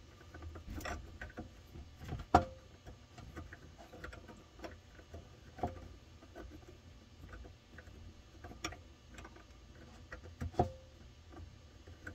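Irregular light clicks and knocks of a plastic faucet mounting nut being fitted and threaded by hand onto a kitchen faucet's metal shank, the loudest knock about two seconds in.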